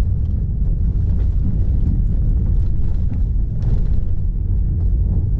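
Steady low rumble of tyres and suspension on a rough dirt road, heard from inside an SUV's cabin, with light scattered rattles and clicks.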